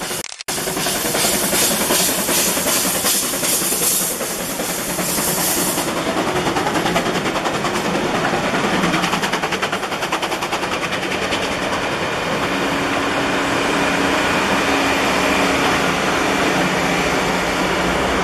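CK124 steam locomotive passing at work, its exhaust beating in fast, even chuffs for the first several seconds. Then the coaches roll by with steady wheel and rail noise, and a low steady drone from the diesel-electric banking locomotive at the rear.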